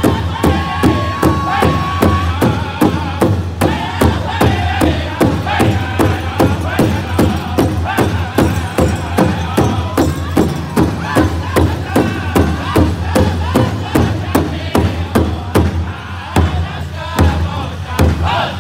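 Powwow drum group singing together over a large shared hide drum, struck in unison by several singers at about three beats a second.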